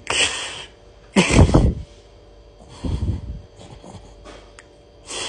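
A man clearing his nose and throat at a sink: four loud, rough snorting and hawking bursts, each about half a second long, spread across a few seconds.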